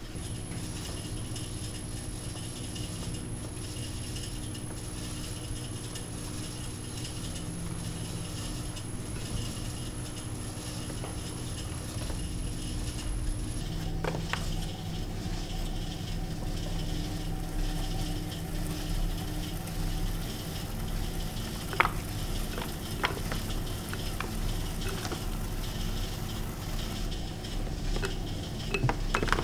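Potter's wheel running with a steady low hum while a metal loop trimming tool scrapes leather-hard clay from the foot of the pot, with a few light clicks of the tool.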